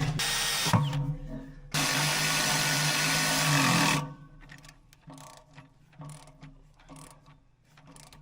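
Handheld power drill running steadily for about two seconds, drilling a bolt hole for the baler liner rail, then stopping suddenly; a few light knocks and clicks of tool handling follow.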